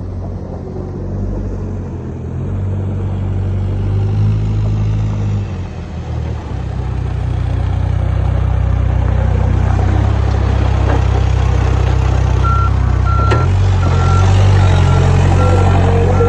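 New Holland B95BTC backhoe's diesel engine running steadily, getting louder about seven seconds in as it is throttled up. Near the end its reverse alarm starts beeping, about one and a half beeps a second, with a single sharp click soon after.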